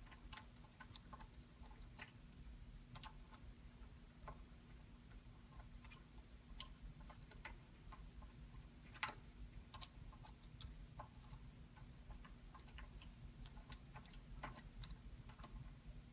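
Faint, irregular light metallic clicks of an Allen key working the handlebar clamp bolts on an e-bike stem, over a low steady hum.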